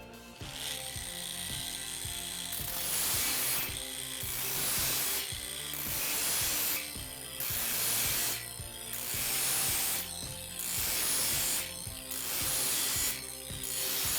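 Angle grinder with a grinding disc, run at low speed, sharpening the teeth of a bandsaw mill blade. It grinds in repeated strokes about a second long, roughly every one and a half seconds, one tooth after another, over quiet background music.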